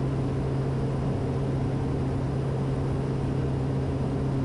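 Cabin drone of a Kodiak 100 single-engine turboprop in flight: a steady low hum from the Pratt & Whitney PT6A turbine and propeller over a constant rushing noise, unchanging throughout.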